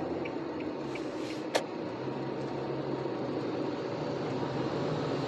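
Car cabin noise while driving: steady road and engine hum, with one sharp click about a second and a half in.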